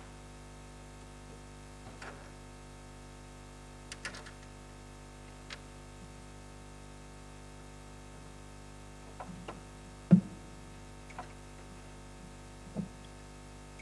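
Scattered light clicks and taps of small 3D-printed plastic model-plane parts being handled and fitted, with one sharper knock about ten seconds in, over a faint steady hum.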